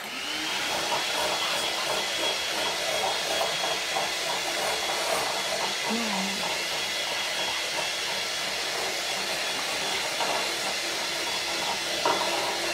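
Electric hand mixer switched on at the start and running at a steady speed, its beaters whipping cream in a glass bowl.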